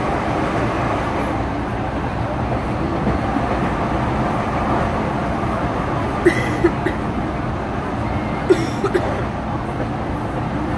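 Steady rumble of a Brasília Metro série 1000 electric train running at speed, heard from inside the passenger car: wheels on rails and running noise. Two short runs of sharp clicks come about six and eight and a half seconds in.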